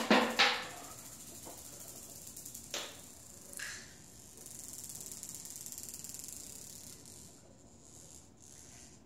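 Glass marble knocked about on a ceramic tile floor: a quick run of sharp ringing clacks at the start, two more single clicks about three and three and a half seconds in, then a few seconds of steady rolling noise that fades out.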